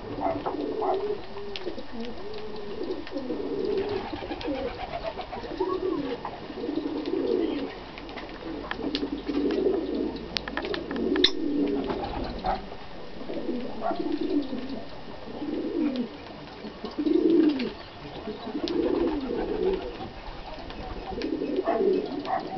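Low cooing calls repeating about once a second, typical of a dove, with light clicks of lovebirds cracking seed at the feeding tray.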